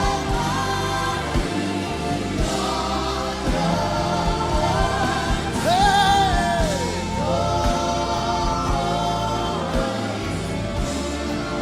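Live gospel worship music: a choir singing long held notes over steady instrumental accompaniment, with a lead voice calling out "Hey" about two-thirds of the way through.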